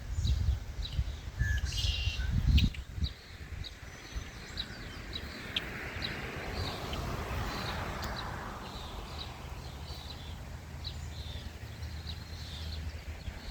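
Small birds chirping, short high chirps repeating about once or twice a second throughout. A low rumble sits under the first few seconds, and a broad, noisy swell rises and fades through the middle.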